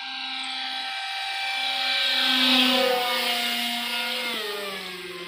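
Brushless electric motor and 6-inch propeller of a foam RC plane whining in a fly-past, growing louder to a peak about halfway through, then dropping in pitch and fading as it moves away.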